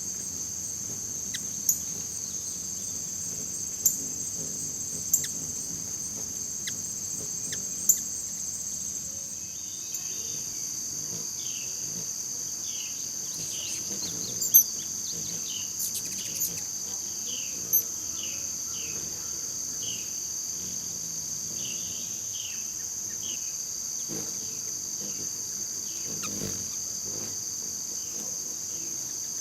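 A steady, high-pitched chorus of insects throughout. About halfway through, a bird gives a run of short, falling chirps, roughly one a second. Scattered sharp clicks come in the first half.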